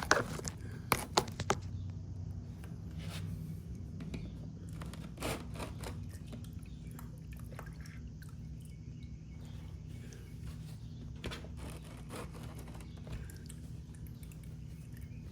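Used engine oil draining from a KTM motorcycle's engine into a drain pan during an oil change, over a steady low hum. A few sharp clicks come about a second in.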